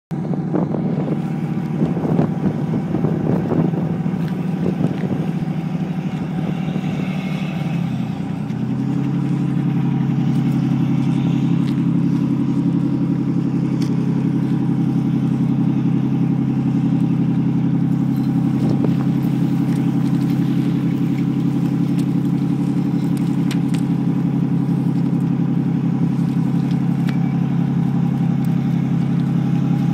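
Boat engine running, uneven with gusty rumbles at first, then settling about eight seconds in to a steady, even hum.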